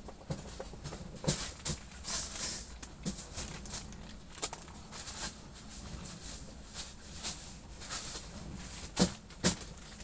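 Woven polypropylene sheeting rustling and crinkling in irregular bursts as it is laid and smoothed flat by a gloved hand, with two sharp knocks close together near the end.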